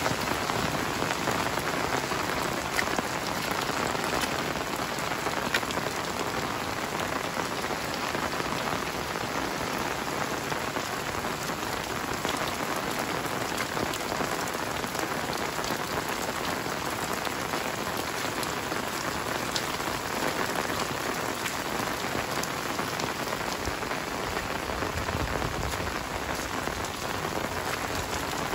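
Heavy rain falling steadily, a dense hiss of drops on roofs and the wet paved lane with scattered individual drip ticks. A low rumble comes in near the end.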